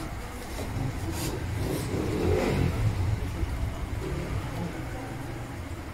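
Yamaha FZS V3's single-cylinder engine running, revved up about two seconds in and settling back. It runs without the clutch-basket knock, its hardened clutch basket dampers newly replaced.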